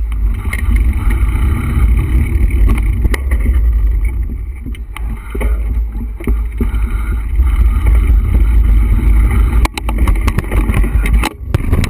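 Loud wind rumble buffeting the microphone of an action camera on a moving mountain bike, with the bike and camera rattling in quick knocks over the bumps of a dirt trail.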